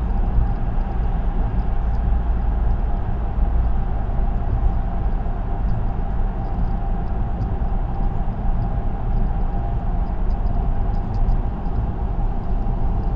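Steady tyre and road noise of a car cruising on an expressway, heard from inside the cabin: an even low rumble with a faint steady hum.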